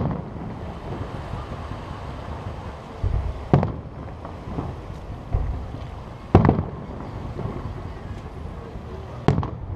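Aerial firework shells bursting with four sharp bangs, roughly every three seconds, with deeper thumps in between, over a steady low rumble.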